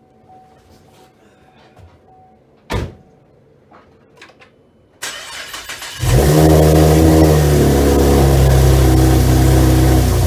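A single thump about three seconds in. About five seconds in the starter cranks for roughly a second, then the Camaro's 3.6-litre LFX V6 fires and runs loud and steady at a fast idle. This is its first start after fitting a larger 80 mm throttle body and intake manifold spacer.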